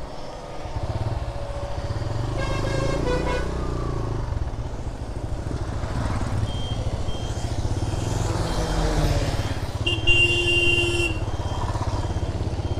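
Motorcycle engine running steadily in traffic. A vehicle horn sounds about two seconds in, and a louder horn blast comes near the end. Short high beeps repeat about once a second from the middle on.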